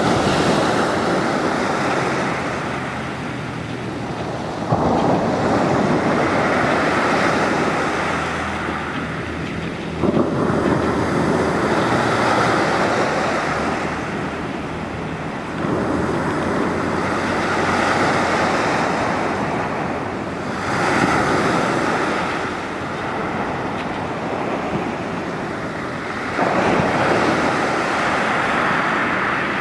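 Sea waves breaking on the shore, each one arriving with a sudden rush of surf about every five to six seconds and washing out slowly before the next.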